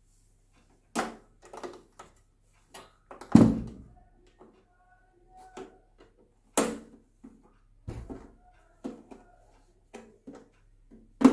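Screwdriver turning screws into the back cover of a quartz room heater, with irregular clicks and knocks as the casing is handled and shifted; the loudest is a deep knock about three seconds in.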